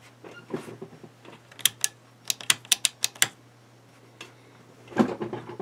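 A quick run of about nine sharp clicks in under two seconds, like typing, over a steady low hum, with a rougher handling sound near the end.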